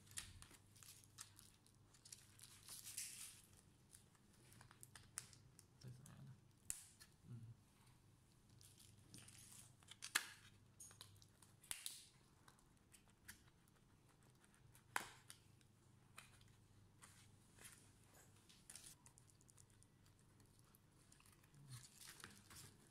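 Faint scraping and crackling as a plastic pry card works the plastic screen bezel of a Dell Inspiron 3511 loose from its display frame, its clips and adhesive letting go in scattered sharp clicks. The loudest clicks come about ten seconds in and again about fifteen seconds in.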